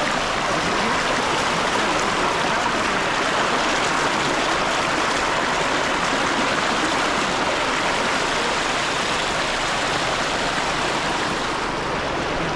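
Rocky stream flowing fast: a steady, even rush of water over rocks.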